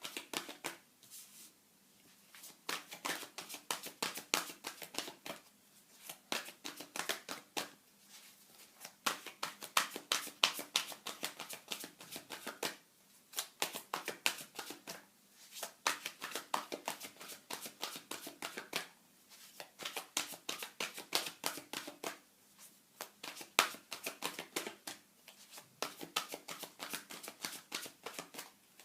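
Tarot cards being shuffled by hand: rapid runs of crisp card-on-card flicks and riffles lasting a few seconds each, broken by short pauses.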